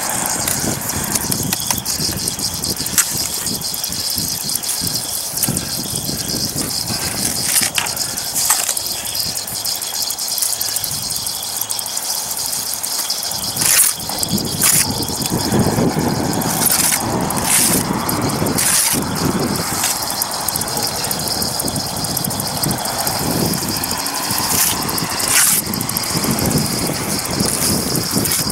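Steel trowel scraping and spreading rapid-set mortar over a brick chimney top, a handful of short scrapes, over a steady outdoor hiss; a low rumble comes in about halfway through.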